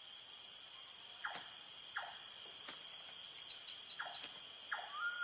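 Faint nocturnal rainforest insect chorus: a steady high-pitched trilling of crickets, with a few short downward-sweeping chirps and a quick run of four tiny high pips about three and a half seconds in.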